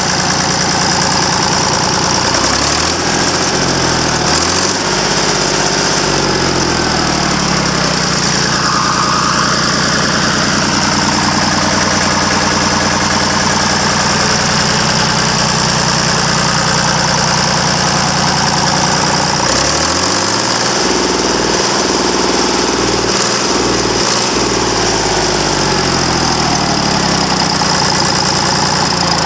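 Deutz F3L912 three-cylinder air-cooled diesel engine running, its note shifting up and down a couple of times.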